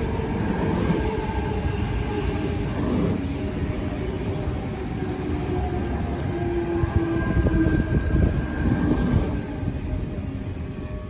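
Sydney Trains electric passenger train running on the rails: a loud, steady rumble of wheels and cars with a few steady tones over it.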